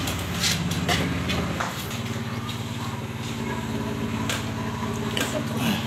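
A steady low mechanical hum, with a few short clicks and knocks over it.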